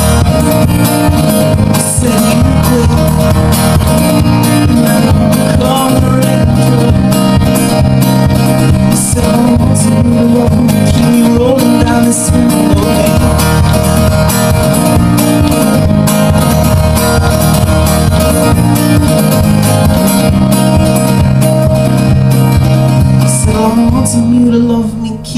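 Steel-string dreadnought acoustic guitar strummed hard in a steady, driving rhythm, a live solo instrumental passage; the playing eases briefly near the end.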